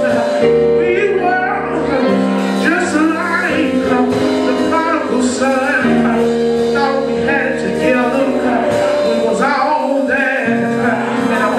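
Church music: held instrumental chords that change every couple of seconds, with voices singing over them.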